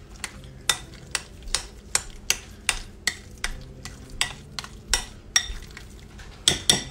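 Metal spoon stirring egg salad in a glass bowl, clicking and scraping against the glass in a steady rhythm of about two to three strokes a second, with a quick run of louder clinks near the end.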